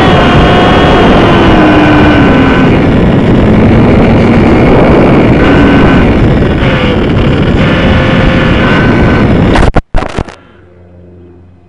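Champ RC plane's electric motor and propeller whining under heavy wind rush, picked up by a keychain camera riding on the plane. The sound is loud and distorted, and the whine drifts up and down in pitch. After about ten seconds it stutters and cuts off abruptly, leaving a faint steady hum.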